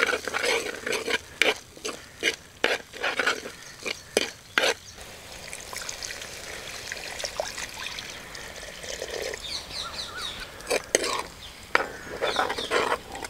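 A steel ladle stirs and scrapes thick liver masala in a pot with a run of knocks against the pot. About five seconds in, water is poured onto the hot masala and it sizzles with a steady hiss. Near the end the ladle knocks and stirs again.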